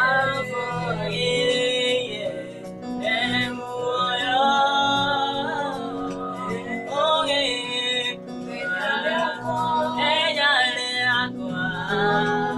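A man and two women singing together to the accompaniment of a Yamaha electronic keyboard playing sustained chords.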